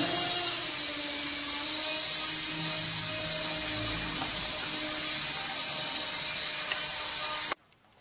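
Micro remote-control helicopter in flight, its tiny electric motor and rotors making a steady buzzing whine that wavers slightly in pitch. The sound cuts off suddenly near the end.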